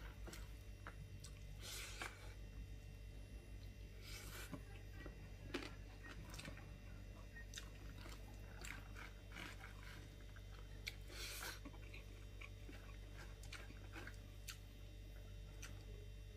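Faint eating sounds: soft chewing and small mouth clicks, with fingers squishing rice on a banana leaf. A few short, louder noises come at about two, four and eleven seconds, over a low steady hum.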